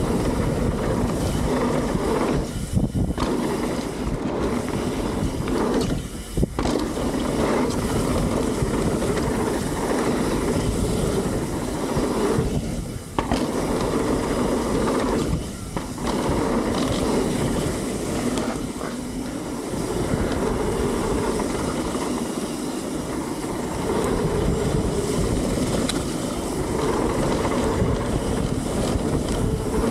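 Mountain bike rolling fast down a rough dirt trail: tyres rumbling over the ground and the bike rattling continuously, with a few brief lulls.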